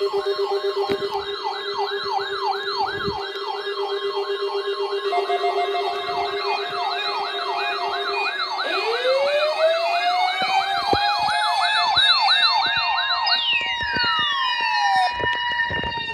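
Several siren sounds layered together: a fast, repeating up-and-down wail over steady tones, then about nine seconds in more siren tones sweep upward and hold, and one drops sharply in pitch near the end.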